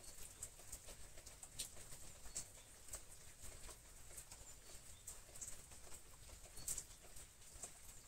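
Faint, irregular rustling and crackling of leafy stems and flower heads being handled and shifted in a flower arrangement.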